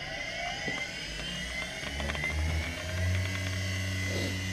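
Kunming KXM10 cutter grinder's small three-phase motor, run from a Yaskawa VS mini drive, spinning up on a soft-start ramp: a whine rising in pitch for the first two to three seconds, then settling into a smooth, steady run at around 5,000 RPM.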